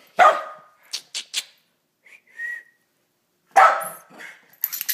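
West Highland white terrier puppy barking, two loud barks about three seconds apart, with shorter sharp sounds and a brief high-pitched note between them.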